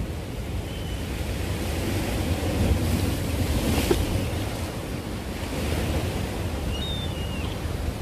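Sea waves breaking and washing against the concrete blocks of a breakwater, with one wave surging up louder about halfway through. Wind buffets the microphone throughout.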